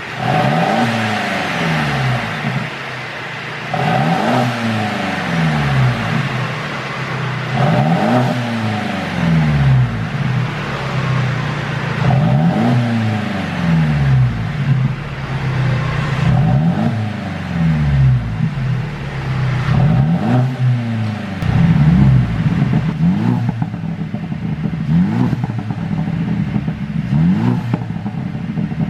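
Mercedes-Benz SLC200's four-cylinder engine being revved over and over, about every four seconds, each rev rising and then falling away. Pops and crackles come from the exhaust as the revs drop, more distinct near the end: the sound of a pop-and-crackle tune on the engine map.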